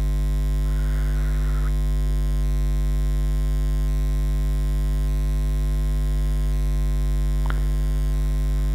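Steady electrical mains hum with a ladder of overtones, fairly loud and unchanging. A faint brief rustle about a second in and a single sharp click about seven and a half seconds in.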